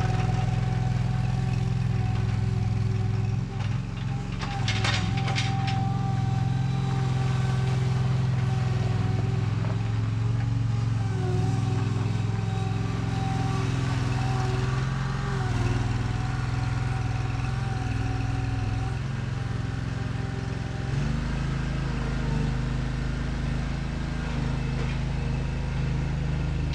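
OMC Mustang 330 skid steer's engine running steadily, with a brief clatter about five seconds in and a change in the engine note about three-quarters of the way through.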